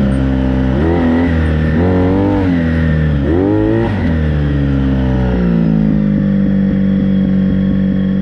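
Honda VF1000 V4 motorcycle engine in a home-built dune buggy, revved up and down in three quick swells, then settling to a steady, lower running speed.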